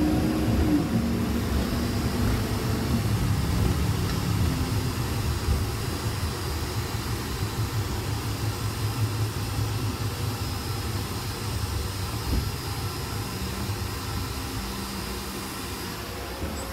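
City bus engine and road noise heard from inside the passenger cabin while it drives: a low rumble with a hum that drops in pitch in steps over the first few seconds, growing quieter toward the end.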